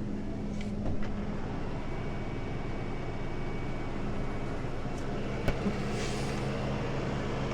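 Tow truck engine running steadily over a noisy rush of wind on the microphone, with a single sharp click about five and a half seconds in.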